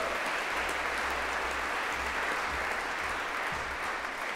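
Audience applauding, a steady patter of many hands clapping that eases slightly near the end.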